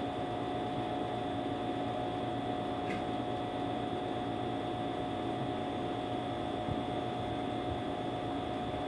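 Steady room hum and hiss with a constant high whine, like a small appliance motor running, unchanging throughout; a faint tick about three seconds in.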